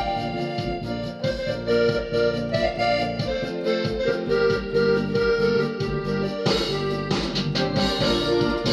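A Yamaha PSR-E463 keyboard playing a programmed style: a musette accordion sample carries the melody over an automatic accompaniment with a steady drum beat.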